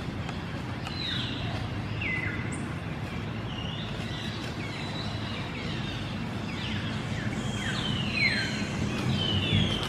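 Repeated short, high-pitched animal calls, each sliding down in pitch, coming every second or so and thickest near the end, over a steady low hum.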